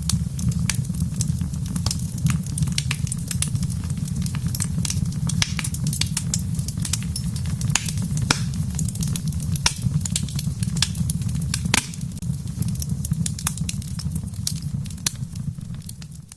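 Fireplace fire crackling, with many sharp, irregular pops over a steady low rumble.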